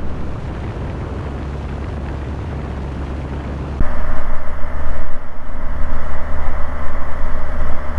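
Light aircraft's engine and cabin noise in cruise flight, a steady drone with a low hum. About four seconds in it suddenly gets louder, with steady hum tones added.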